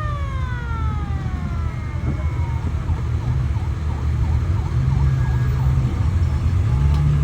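A siren-like tone winding down, sliding steadily lower in pitch and fading over the first two seconds or so, over the steady low rumble of a running vehicle.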